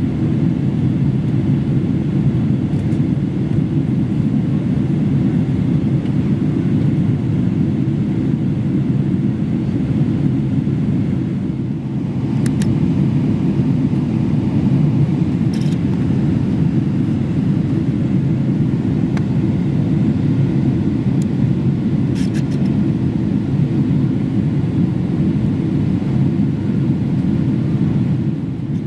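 Steady low rumble of a Boeing 777-300ER in flight, heard inside the cabin: engine and airflow noise, with a few faint clicks.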